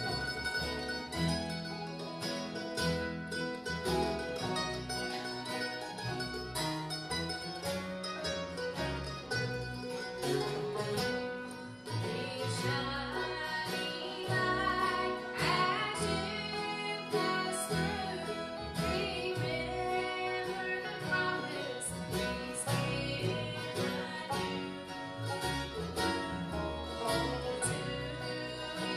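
Live bluegrass band playing banjo, mandolin, acoustic guitar and upright bass, with a woman singing lead.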